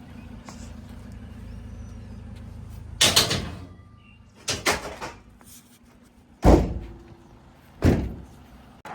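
A vehicle's engine hums low and steadily, then stops about three seconds in. Four loud slams follow over the next five seconds, vehicle doors being shut.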